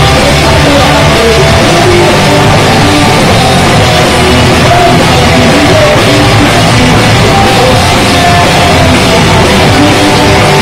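Rock band playing live and loud: electric guitars, bass guitar and drum kit together.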